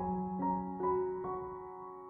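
Slow, soft background piano music: single notes struck about every half second and left to ring.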